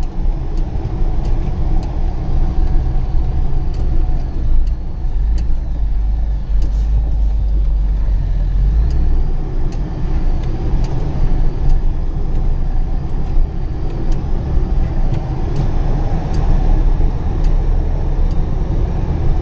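Truck engine running under load on a rough dirt track, heard from inside the cab as a steady low rumble, with frequent sharp rattles and knocks from the cab jolting over the bumps.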